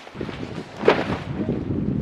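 Gusty wind buffeting the microphone with a rough, rumbling noise, and a single sharp tap about a second in.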